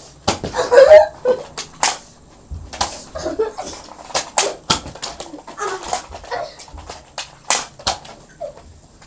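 Nerf foam-dart blasters being primed and fired back and forth: a string of sharp snaps and clacks scattered through, mixed with a few short yelps and cries from the players.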